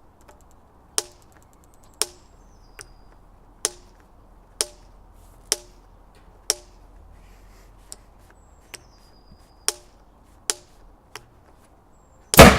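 Repeated sharp clicks, about a dozen at uneven intervals roughly a second apart, from the spark igniter of a combustion potato cannon being clicked over and over. Near the end the cannon fires with a very loud bang.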